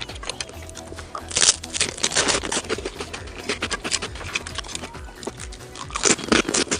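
Close-up mukbang eating sounds of mussels: shells clicking and scraping with wet, crackly chewing, busiest about a second and a half in and again near the end. Music plays underneath.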